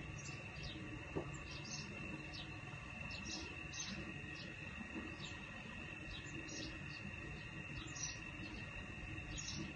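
Short, high-pitched chirps from a small animal, coming irregularly a few times a second over a steady high tone.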